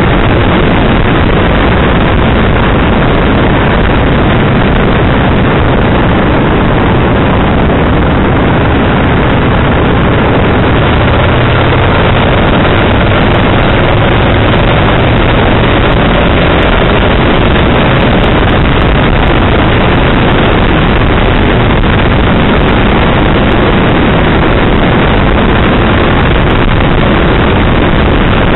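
Kawasaki VN1500 motorcycle riding at road speed. Its V-twin engine runs under a loud, steady rush of wind and road noise.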